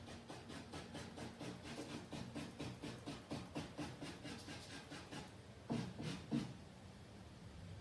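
Quick repeated hatching strokes of a drawing tool on a large canvas, about five a second, with two heavier strokes about six seconds in.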